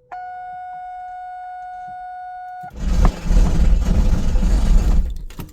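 A steady electronic warning tone, cut off about two and a half seconds in by the starter of an LS1 V8 engaging with a loud, harsh grind that lasts a couple of seconds and dies away. The grinding comes from the starter gear not meshing cleanly with the ring gear because the starter's mounting bolts have come loose.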